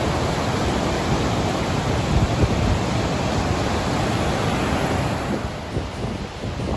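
River rapids: a steady rush of white water pouring over rocks, easing a little near the end.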